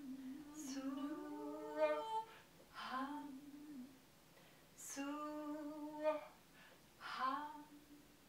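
Women's voices singing wordless, layered experimental vocal music: a long held low note while a second voice glides upward, then short sung notes breaking off and starting again, with two sharp hisses. The singing stops shortly before the end.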